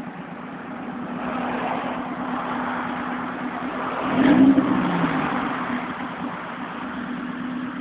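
Honda B16 inline-four engine idling with a leaking exhaust, blipped once about four seconds in, the revs rising briefly and falling back to idle.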